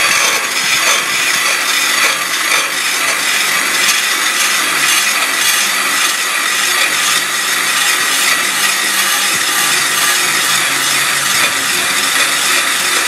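Ryobi 18-volt cordless drill spinning a blade-sharpener grindstone along the cutting edge of a steel lawn mower blade: a loud, steady grinding of stone on steel over the drill's motor.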